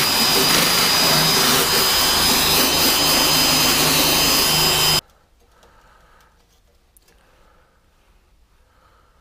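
Cordless drill running flat out with a wire brush scrubbing the metal at the bottom edge of a Land Rover 110 door: a steady loud grinding rush with a thin high whine. It cuts off suddenly about five seconds in, leaving only faint handling sounds.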